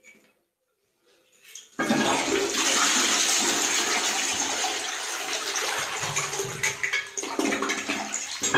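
Fiori Lavanda close-coupled toilet flushing: a sudden loud rush of water starts about two seconds in as the cistern empties into the bowl, then carries on washing and draining the bowl, easing off a little near the end.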